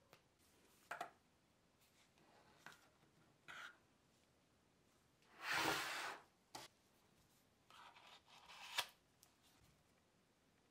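A spatula scooping aluminium body-filler putty from its tin and spreading it on a metal plate: scattered short scrapes and light taps, with one longer scrape about halfway through and a sharp click near the end.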